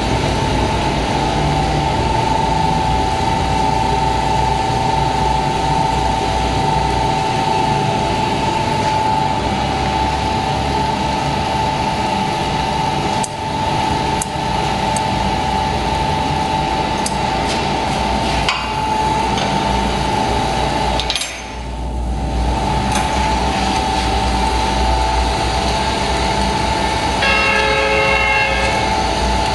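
Steel-wire spiral scourer making machine running: a steady mechanical drone with a constant whine, broken by a few sharp clicks and a brief dip about two-thirds of the way through. Near the end there is a short, higher-pitched tone.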